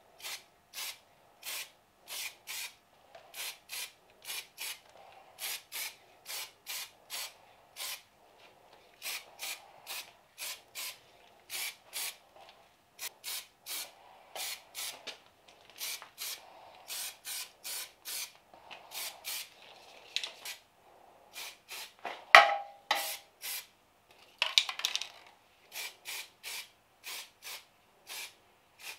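Aerosol primer spray can spraying in short, repeated hissing bursts, about two a second, coating metal brake calipers. A single louder knock about three-quarters of the way through.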